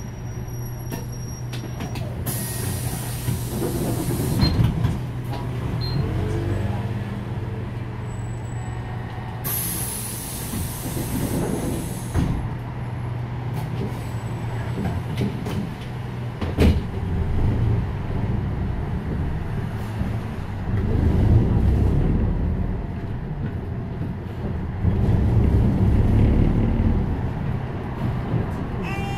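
Cabin sound of a Hyundai New Super Aerocity CNG city bus under way: a steady low engine hum with surges of road and engine noise, two bursts of compressed-air hiss around two and ten seconds in, and a sharp click about halfway through.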